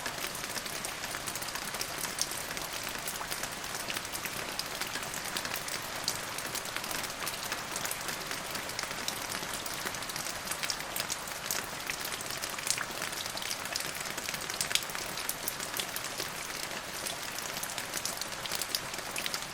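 Steady rain falling, a dense even hiss with many individual drops pattering and ticking on a hard surface.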